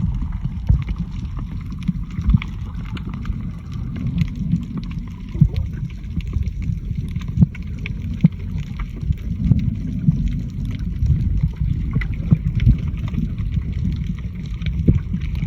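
Low steady rumble with wind buffeting the microphone and scattered short knocks, as on a dive boat.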